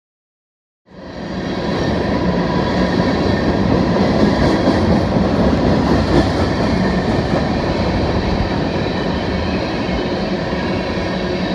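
Freight train of oil tank cars rolling past close by: a loud, steady rumble of steel wheels on the rails, starting suddenly about a second in.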